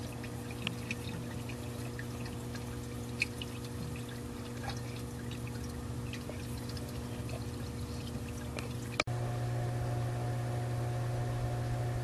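Dolphin Diagnostic Advantage robotic pool cleaner running with a steady motor hum, water trickling and dripping around it at the waterline. About nine seconds in the sound breaks off for an instant and the hum returns louder.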